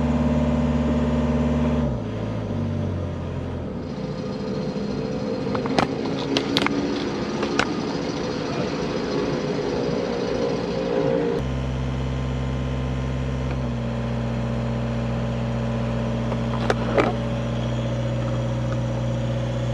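Sailboat's engine running steadily while motoring; its tone steps down about two seconds in, and its sound changes again about halfway through. A few sharp clicks or knocks come in the middle.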